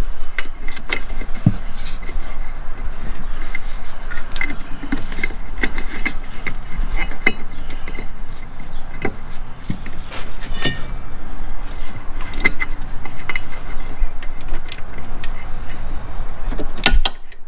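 Clinks, taps and knocks of hand tools and metal parts being handled during mechanical work on a side-by-side, with a brief metallic ringing about two thirds of the way in, over a steady background hiss.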